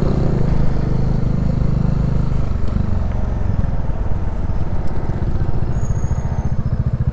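Yamaha NMAX 155 scooter's single-cylinder engine running at low speed on a slow ride, its steady beat easing a little about two and a half seconds in.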